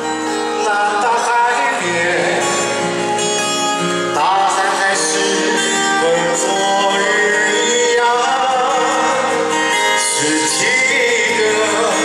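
Live male singing of a Taiwanese folk-pop ballad with guitar accompaniment, amplified through an arena's sound system.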